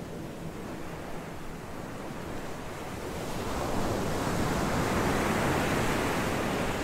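Ocean surf: a steady wash of waves that swells louder about halfway through.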